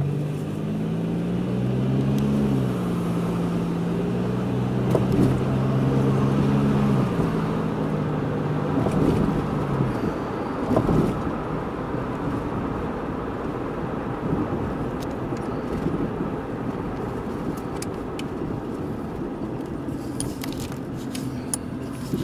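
Car engine heard from inside the cabin, its note rising a little as the car pulls away and then holding steady for about ten seconds. After that only steady road and tyre noise is left.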